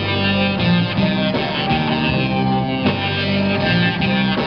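A live rock band playing: electric guitars, keyboard and drums together, with heavy accents about every second and a half.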